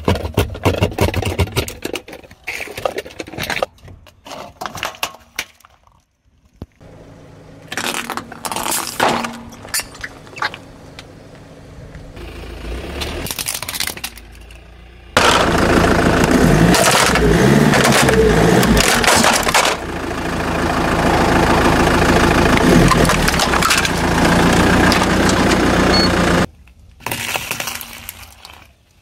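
A car tyre rolling over hollow plastic toys, cracking and crunching them in several separate bouts of sharp cracks. In the middle there is a long, loud stretch of dense continuous noise that ends abruptly.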